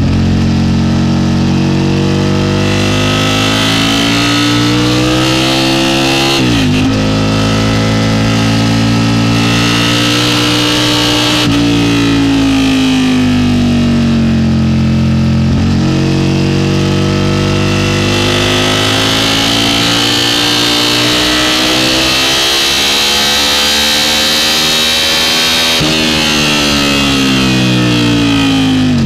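Aprilia sport bike engine at full throttle from onboard the bike on track: the engine note climbs with revs and falls back sharply at each gearshift, several times over, with a steady rush of wind.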